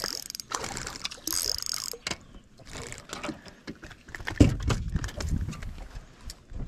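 Hooked bass splashing at the water's surface beside a small boat, with two short bursts of splashing in the first two seconds. Scattered knocks follow, and a loud thump against the boat about four seconds in as the fish is brought aboard.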